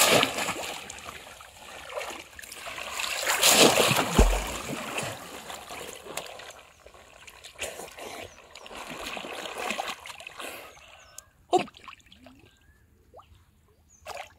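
Hand slapping and splashing river water hard, loudest in the first few seconds, then gentler sloshing that dies away to quiet, with a few short sharp sounds near the end.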